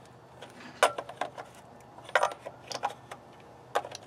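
A small hand wrench clinking and clicking against the lug nut caps of a steel truck wheel as they are tightened, in a handful of separate sharp clicks.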